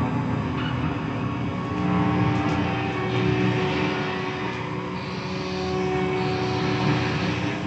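Layered electric guitar loop playing back from a Line 6 DL4 delay pedal through a guitar amp: a dense, sustained drone of many held notes that swells and eases gently.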